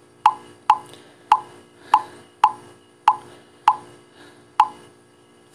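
WhatsApp's message-sent pop, about eight short pitched pops spaced roughly half a second to a second apart. Each pop is one copy of the same message going out as an automatic message-bombing feature sends it over and over.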